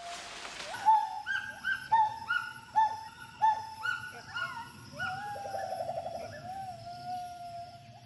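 Gibbon calling: a run of short whistled hoots, each swooping up and falling away, a little over two a second. They give way about five seconds in to a long held note with a fast quavering trill in the middle, then a second held note.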